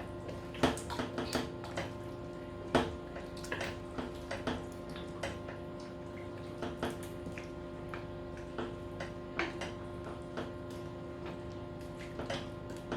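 Chicken curry simmering in its stock, bubbles bursting in irregular pops and clicks over a steady hum.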